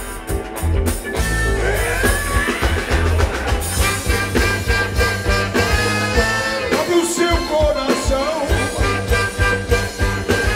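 Live soul-funk band playing over a steady beat, with a horn section of saxophone, trombone and trumpet.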